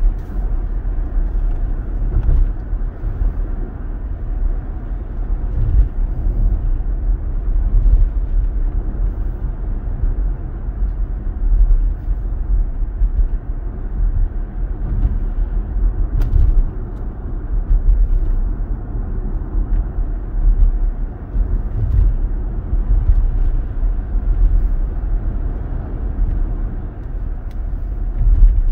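Road and engine noise inside a moving car: a steady low rumble that swells and eases a little as it drives.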